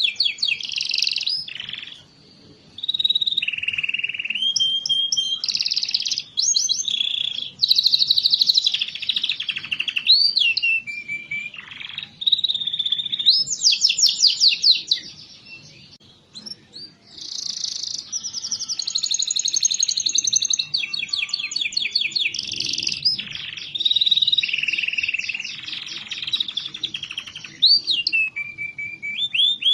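Domestic canary singing a long, continuous song of rapid trills, rolls and repeated chirps, with short breaks about two and sixteen seconds in. It is a lure song, played to prompt quiet canaries into singing.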